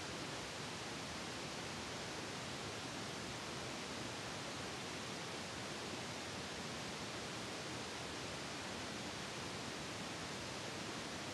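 Steady, even hiss like static, with no distinct sounds standing out of it.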